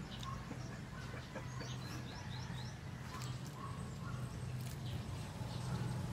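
Birds chirping: a quick run of short, high, repeated chirps about one and a half seconds in, over a steady low hum, with a few faint clicks.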